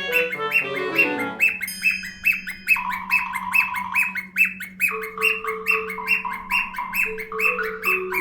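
Background music: a quick, evenly repeated chirpy note with a tick, about four a second, over held tones and a steady low drone, with a falling run of notes about a second in.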